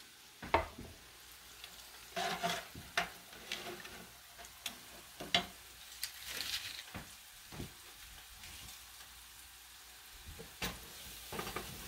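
Low steady sizzle of spices frying in oil in a skillet, with scattered sharp clicks and scrapes of cooking utensils against the pans.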